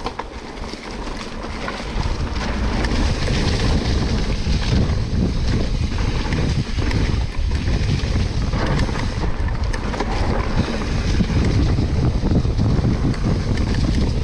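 Wind rumbling on an action camera's microphone while riding a mountain bike down a trail, with scattered small rattles and ticks. It grows louder about two seconds in and then stays steady.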